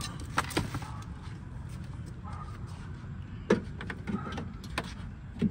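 Several sharp clicks and knocks of hard plastic parts being handled as a replacement side mirror is fitted to a car door, over a steady low background rumble.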